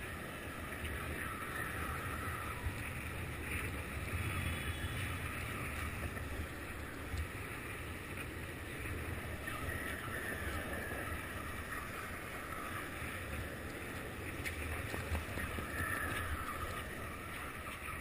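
Skateboard wheels rolling on asphalt: a steady low rumble with a few sharp clicks from cracks and seams in the pavement.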